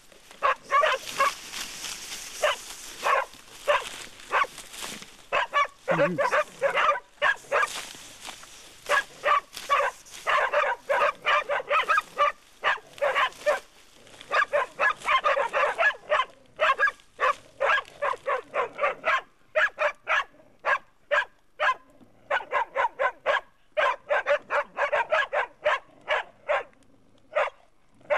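Pig-hunting dog barking over and over at a wild pig held at bay, in quick runs of sharp barks broken by short pauses.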